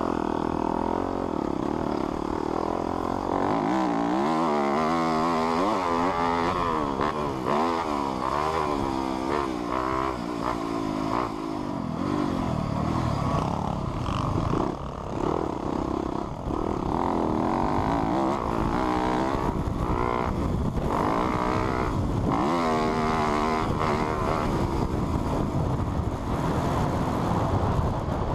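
Four-stroke dirt bike engine being revved again and again through its exhaust, the pitch climbing and dropping in waves, with steadier running between the runs of revs.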